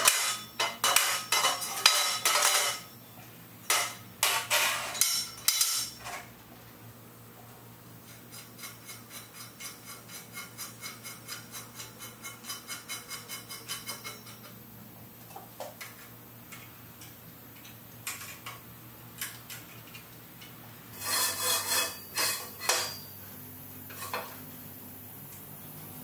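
Long square steel tube clanking and rattling as it is laid onto a steel table and bandsaw vise. Partway through comes a run of even clicks, about three or four a second, as the screw of a scissor-jack support stand is turned under the tube. More metal clanks follow near the end, over a faint steady hum.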